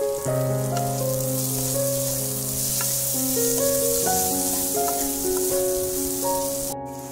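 Diced vegetables frying in mustard oil in a kadai, a steady hiss of sizzling as a wooden spatula stirs them, under background music of held notes. The sound cuts out abruptly for a moment near the end.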